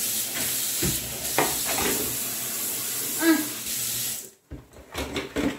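Kitchen tap running into a sink, the stream splashing into a plastic container being rinsed; the water stops abruptly about four seconds in. A few light knocks follow near the end.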